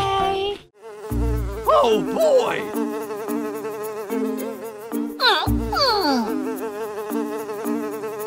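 Buzzing of flies, a steady wavering drone, with a low thump and falling whistle-like glides about a second in and again a few seconds later, over a repeating pattern of short low tones.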